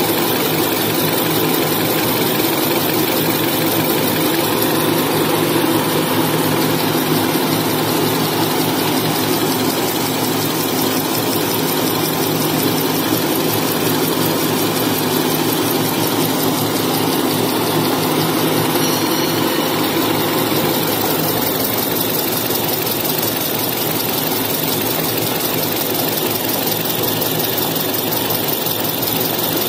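Semi-automatic maxi-roll slitting and rewinding machine running steadily as it cuts and winds tissue paper: a continuous mechanical drone with a steady hum underneath and no breaks.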